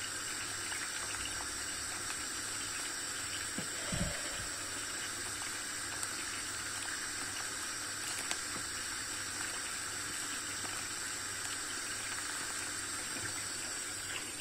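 Tarhana soup simmering in a stainless-steel pot as a wooden spoon stirs it: a steady bubbling hiss, with one dull knock about four seconds in.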